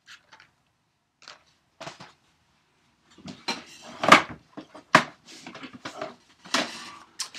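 Plastic DVD cases clacking and knocking together as they are handled and sorted: a few faint clicks at first, then a run of sharper clatters over the second half, loudest about four and five seconds in.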